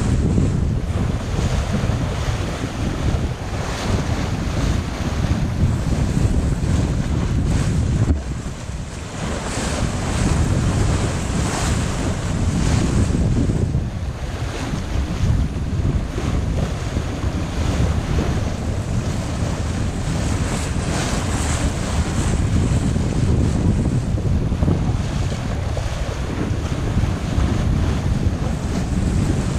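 Wind buffeting the microphone over the steady rush of the sea around a sailing yacht under way, easing briefly about eight seconds in.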